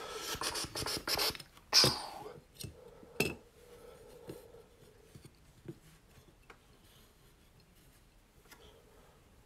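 Clear acrylic card display stands being handled and set down on the table: rubbing and scraping with sharp plastic clicks and knocks. The loudest click comes about two seconds in and another about three seconds in, then only a few faint ticks.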